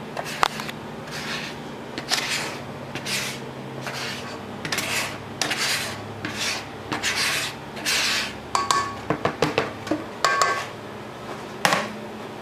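Powdered sugar being shaken and tipped out of a bowl into a stainless steel stand-mixer bowl: a series of soft rasping swishes about once a second, with a few light clinks a little after the middle.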